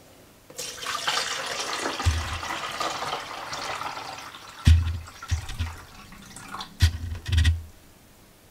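Water running from a kitchen tap for about four seconds, fading as it goes, then several dull thuds and clicks of things being handled on the counter.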